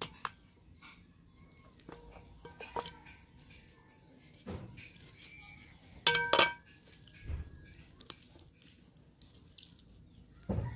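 Large steel kitchen knife and raw chicken knocking against a metal serving tray while the bird is cut up: scattered taps and clicks, the loudest a pair of ringing metallic clinks about six seconds in.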